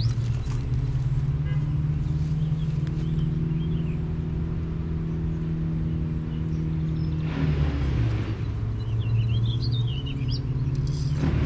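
A steady low mechanical hum, with a brief rush of noise about seven seconds in and again near the end. A bird chirps about nine seconds in.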